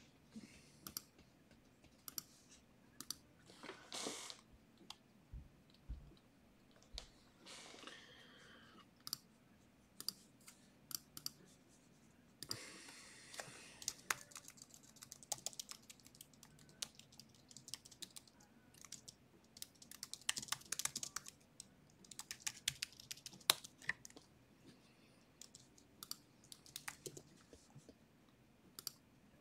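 Scattered clicks of a computer keyboard and mouse, at times in quick clusters, with a few short soft rustles.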